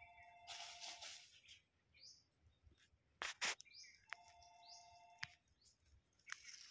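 Faint birdsong: short high chirps repeating now and then, and twice a steady two-note whistled tone held for about a second. A sharp knock comes a little after three seconds in.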